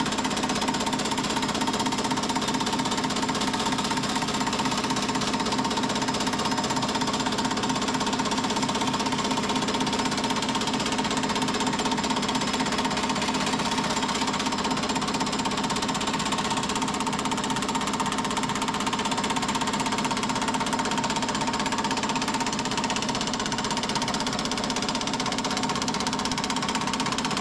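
Power hammer running steadily, its fast, even hammer strokes working a rusty sheet-steel door repair panel through home-made profile dies to form a bead, over the steady hum of the machine.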